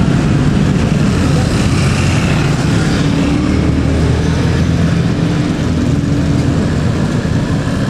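Motorcycle engines passing close at low speed over a railway level crossing, mixed with the engine of an approaching yellow Mitsubishi light truck: a steady, loud blend of engine hum.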